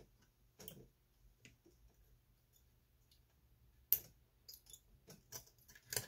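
Sparse small clicks and light scrapes of a metal pick and soldering iron tip working against a power transistor's tab on a circuit board, as the solder melts and the tab is pried up. The sharpest click comes about four seconds in, with a few more near the end.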